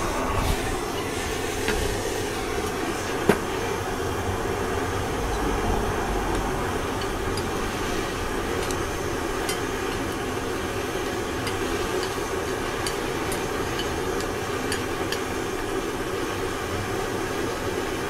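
Propane torch burning with a steady roar while lead melts in a small metal pan. A sharp clink comes about three seconds in, and later a metal rod clinks lightly against the pan as it stirs the molten lead.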